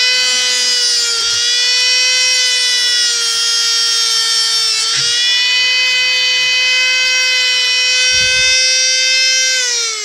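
Dremel rotary tool running at high speed with a steady high-pitched whine while cleaning up the freshly cut end of a parking brake cable. The pitch dips briefly twice, about a second in and near the middle, and falls as the tool winds down at the end.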